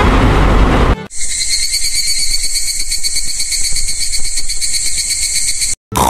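A loud low rushing noise for about a second, cut off abruptly, then steady high insect chirring, which stops suddenly near the end.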